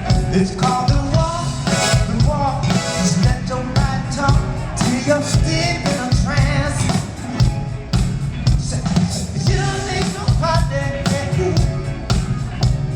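Live funk band playing over a steady driving beat, with singing and horn-like lines above it, heard through a fan's recording in a concert crowd.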